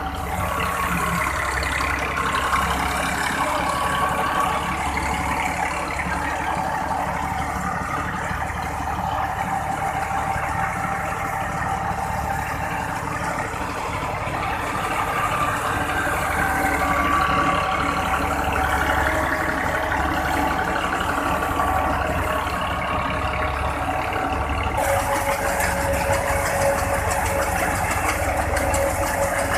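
Tractor engine and wheat thresher running steadily together: the tractor drives the threshing drum through a shaft while wheat is fed in.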